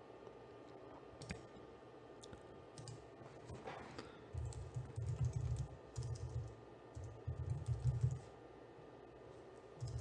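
Faint computer keyboard typing: a few light clicks at first, then a run of dull low thumps from about four seconds in to about eight seconds.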